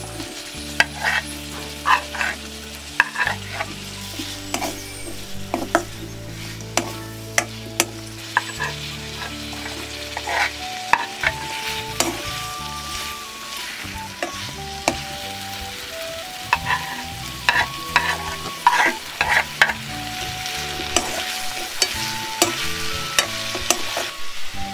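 Sliced onion, potato, carrot and green beans sizzling as they are stir-fried in a steel wok, with a slotted spatula scraping and knocking against the pan in frequent sharp strokes.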